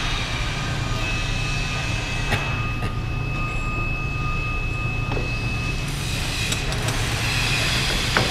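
Metal lathe running with a steady low hum, with a few light metallic clicks and a thin high whine that holds from about a second in until about six seconds.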